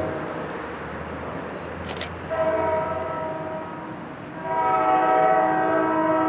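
North Jersey Coast Line commuter train's chord air horn sounding: the end of one blast at the start, a short blast a little after two seconds in, then a longer blast from about halfway.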